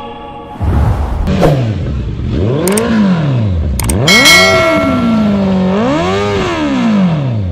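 Motorcycle engine revved up and down three or four times, each rev rising and falling in pitch, with a couple of short sharp clicks between the revs.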